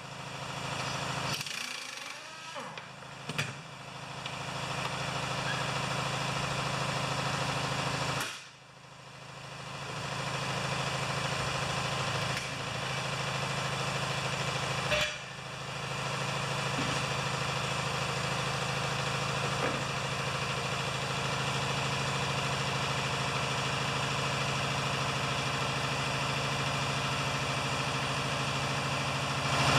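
A motor running with a steady hum, with a few sharp knocks in the first few seconds. It drops out briefly about 8 seconds in and picks up again within a couple of seconds.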